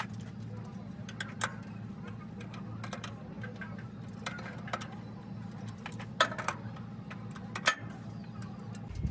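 Metal tools and parts clinking: scattered sharp clicks and clinks a second or so apart, the loudest about six and nearly eight seconds in, over a steady low hum.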